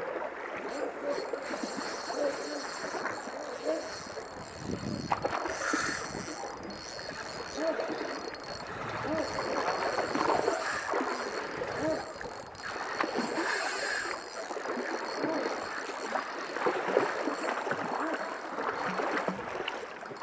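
Surface splashing of a topwater popper lure being worked across the sea, with water churning and spraying at the surface.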